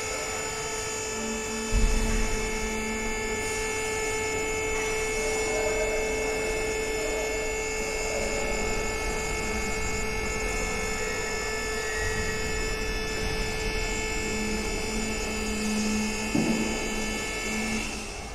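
Two-post vehicle lift's electric hydraulic power unit running steadily under a heavy test load, its motor and pump giving a constant whine as the arms raise the weights. A low knock about two seconds in and another near the end.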